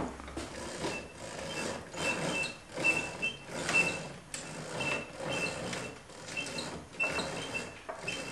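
A window blind's cord pulled hand over hand in repeated tugs, each a rustle, many with a short high squeak, about two a second.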